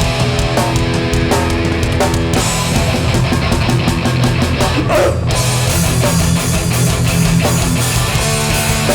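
Hardcore punk band playing live: distorted electric guitars and bass over drums, in an instrumental passage without vocals. About two seconds in the cymbals come in hard and fill the top end, with a brief drop in the cymbals about five seconds in.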